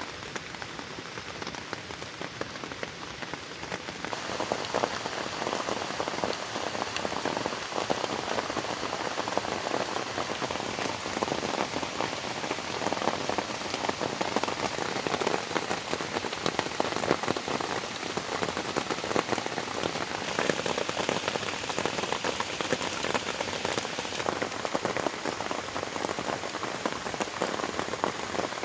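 Heavy rain falling, a dense patter of drops striking a surface; it grows louder about four seconds in and then stays steady.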